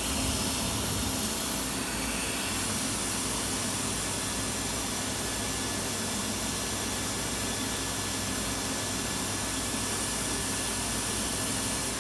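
Colombo 5.5 kW CNC router spindle spinning at 6000 rpm in its warm-up cycle: a steady whir with a hiss and no change in pitch. It runs quiet, with no growling or grinding, which the dealer takes as the sign of a healthy spindle that does not need a rebuild.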